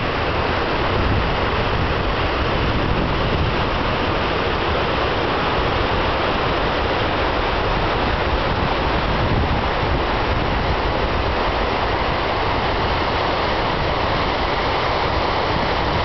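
Waterfall on a river, a steady rush of falling water.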